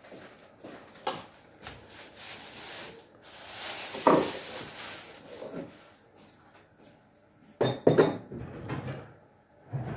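Kitchen handling sounds: scattered knocks and clinks of dishes and cutlery, with a louder knock about four seconds in and a metallic clatter near eight seconds.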